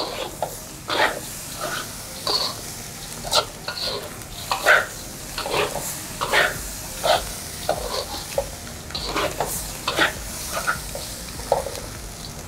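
Spatula stirring and scraping dry, seasoned rice around a pan, in irregular strokes every half second or so.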